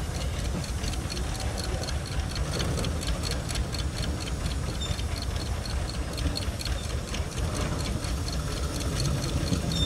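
Small narrow-gauge diesel locomotive's engine running at low speed with a regular ticking beat, about four or five a second, over a low rumble. It grows a little louder near the end.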